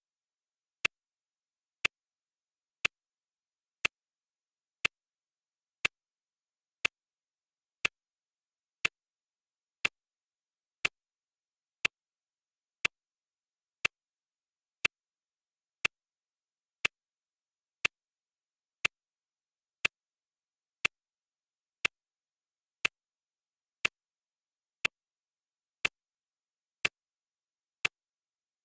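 Clock ticking steadily, one sharp tick per second, with silence between the ticks.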